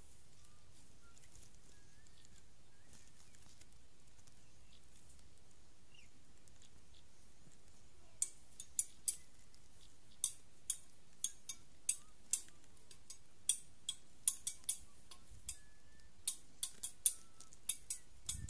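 Sharp, dry crackling clicks at irregular intervals, close by, starting about eight seconds in, like dry stalks and stubble snapping and crackling. Before them, a few faint bird chirps over a quiet background.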